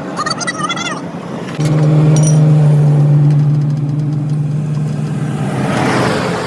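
Motor vehicle engine running with a steady hum that comes in suddenly about one and a half seconds in and fades near the end.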